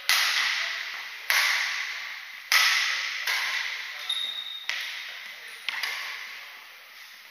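Badminton racquets striking a shuttlecock in a doubles rally: six sharp hits about a second apart, each ringing on in the hall's echo. A short high squeak comes about four seconds in.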